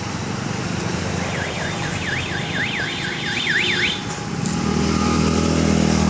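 Road traffic noise with an electronic siren-like tone, like a car alarm, warbling quickly up and down for about two and a half seconds. Near the end a nearby vehicle engine's hum grows louder.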